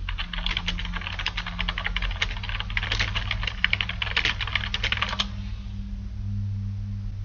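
Typing on a computer keyboard: a quick, uneven run of key clicks that stops about five seconds in, over a steady low hum.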